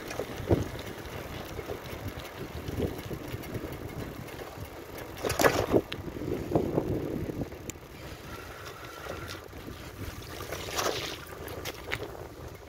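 Wind buffeting the microphone over the rumble of a bicycle rolling on pavement, with a sharp jolt about five seconds in and a smaller one near the end.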